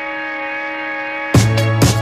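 Electronic background music: a held synth chord with no beat, then drums and a heavy bass come back in about one and a half seconds in.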